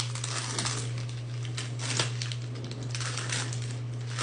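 Plastic candy wrapper being crinkled and pulled off a box of chocolates, an irregular run of crackles with a sharper crackle about two seconds in, over a steady low hum.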